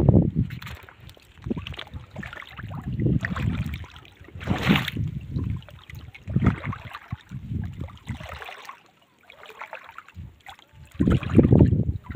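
Wind buffeting the microphone in uneven gusts, with a brief sharper noise about four and a half seconds in.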